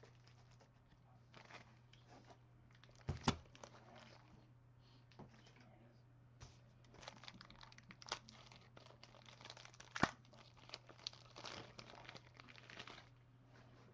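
Plastic packaging crinkling and rustling, with scattered small clicks and two sharper clicks about three and ten seconds in, as a trading card is handled and put into a protective case. A faint steady low hum lies underneath.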